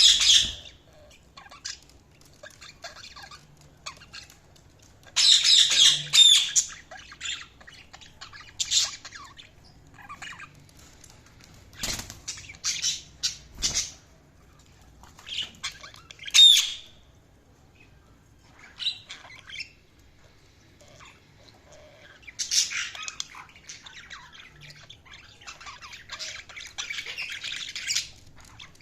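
Budgerigars chattering and squawking in bursts, with sharp chirps and a longer stretch of continuous warbling near the end.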